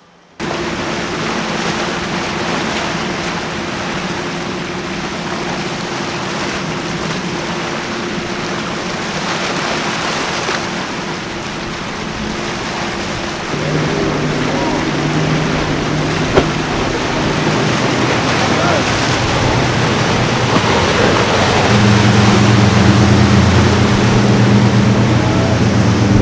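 Inboard diesel engines of big sportfishing boats running at speed through an inlet, over the rush of wake, spray and surf. The engine drone shifts lower after about halfway and grows louder and deeper near the end as a boat passes close.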